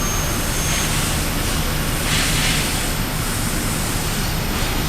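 Steady factory-floor noise of running machinery and ventilation, with a constant low hum and a hiss that swells about a second in and again, louder, around two seconds in.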